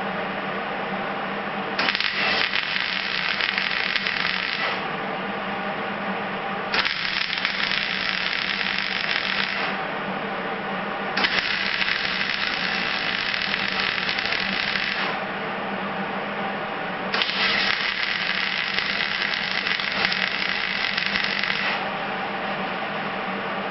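MIG welder laying weld on sheet-metal bed-floor repair panels, in four crackling runs of three to four seconds each with short pauses between, over a steady hum.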